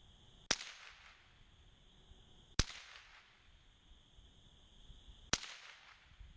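Sears Ted Williams Model 3T .22 rifle firing three single shots about two to three seconds apart, each a sharp crack with a short ringing tail.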